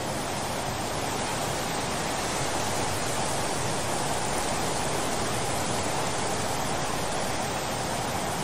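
Floodwater pouring from a dam's open spillway gates, a steady heavy rush of falling water.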